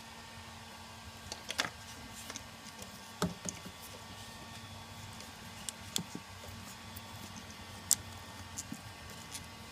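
Scattered light clicks and taps of hands working on a car's wiring harness, at irregular intervals over a faint steady hum.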